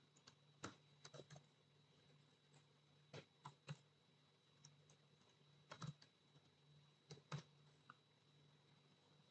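Faint typing on a computer keyboard: scattered keystrokes in small clusters of two or three, with pauses between, over a faint steady hum.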